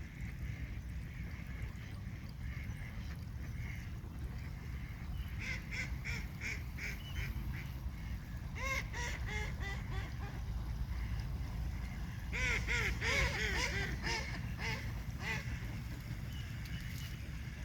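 Waterfowl calling in three bouts of quick, repeated honking calls, the loudest bout about two-thirds of the way through, over a steady low rumble.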